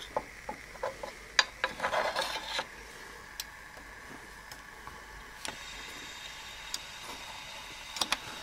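Light metal clicks and taps as the lit spirit burner is pushed under the boiler of an old Bing toy vertical steam engine and its small tinplate firebox door is handled. A few more clicks follow, with a faint steady hiss from about halfway through.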